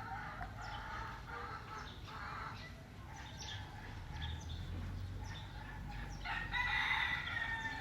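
Rooster crowing, one long crow about six seconds in, among scattered shorter bird calls.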